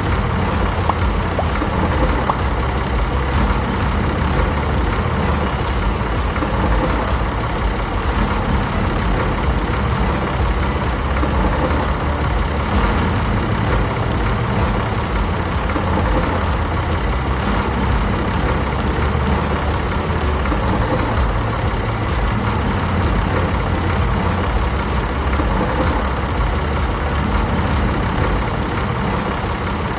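Tractor engine running steadily: an even, unbroken low drone.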